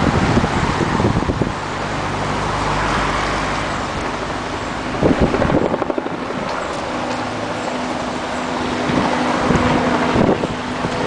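Steady rush of a river in flood, with a motor vehicle's engine running nearby from about a second and a half in, and wind buffeting the microphone.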